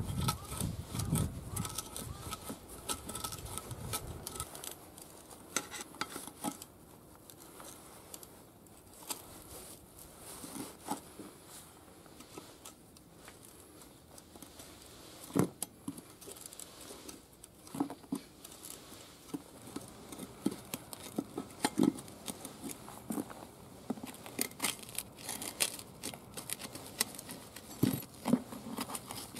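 Steel tyre levers and pry bars working at a rusted tyre bead on a steel tractor wheel rim: scattered metal scrapes, clicks and taps as the bead is pried from the rim and starts to come loose.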